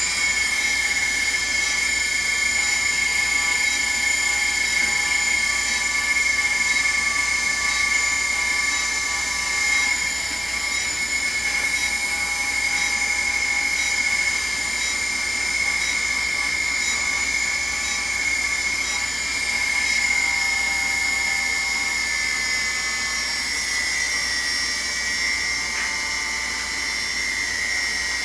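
HobbyKing Nova quadcopter's brushless motors spinning with a steady high-pitched whine, several motors sounding at slightly different pitches. The pitch dips slightly about two-thirds of the way through and again near the end.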